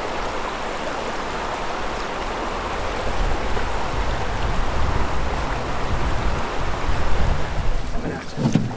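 Steady rushing of river water, a dense even hiss with a low rumble under it, growing a little louder partway through.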